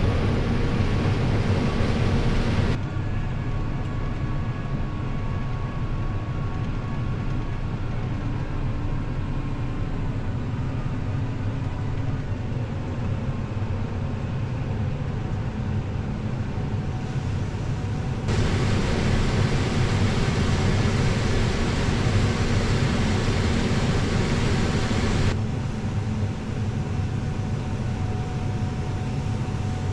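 Heavy harvest machinery running steadily at work, a constant engine hum with machine noise. The sound changes abruptly about 3 s in, about 18 s in and again about 25 s in, as if switching between different machines or vantage points.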